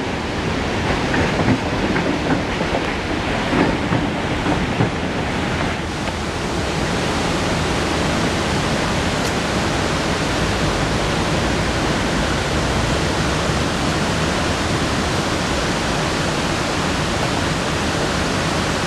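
Freight wagon wheels clacking over rail joints, fading out after about six seconds, over the steady rushing of the Dudhsagar waterfall, which is all that is left after that.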